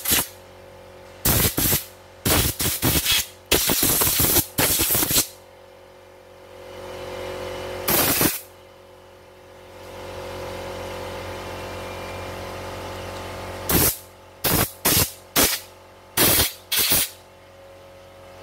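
Compressed-air gun blasting into an opened embroidery machine in short hissing bursts, some in quick runs and one longer burst about four seconds in. It is blowing out the dirt believed to be behind the unresponsive touch screen. In the gaps a steady hum swells up and fades.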